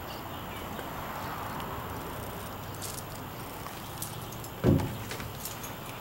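Steady low hum with one heavy thump near the end: a footstep climbing into a travel trailer.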